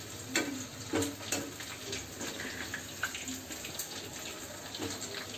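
Chicken pakoras deep-frying in hot oil in a small pan, a steady sizzle, with a few light clicks.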